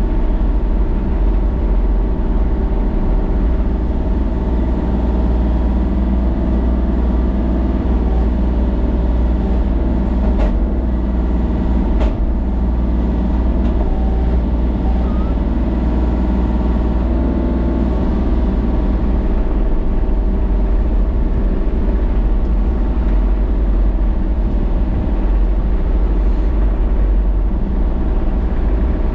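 An engine running steadily without let-up, with two sharp knocks about ten and twelve seconds in.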